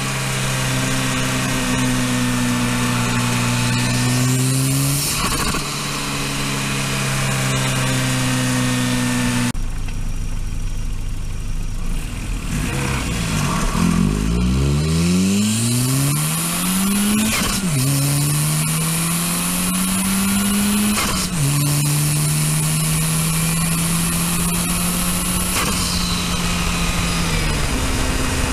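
Volvo 240 Turbo's turbocharged four-cylinder engine heard through the intake from the engine bay while driving: a steady cruise note, the engine easing off about ten seconds in, then climbing hard in pitch through two upshifts with a high turbo whistle rising under boost.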